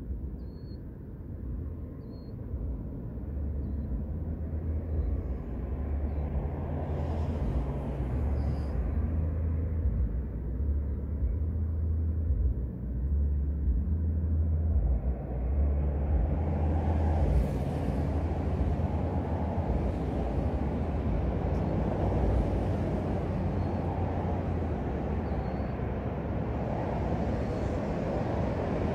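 A car engine running with road noise; the rushing tyre noise grows louder from about halfway through.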